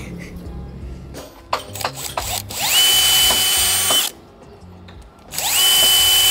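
Cordless drill triggered twice, each time spinning up with a rising whine to a steady high whine for about a second and a half, then stopping suddenly. A few light clicks and knocks from handling come before the first run.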